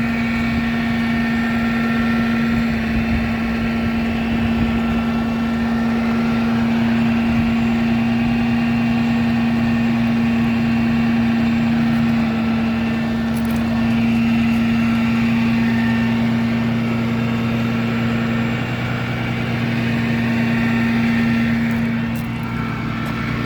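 2014 Ram 5500 work truck's diesel engine idling, a steady hum that holds one pitch throughout.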